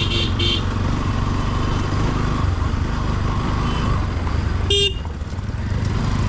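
Motorcycle engine running steadily while riding a rough dirt track. A quick series of short high beeps sounds at the very start, and a motorcycle horn toots once, briefly, about three-quarters of the way through.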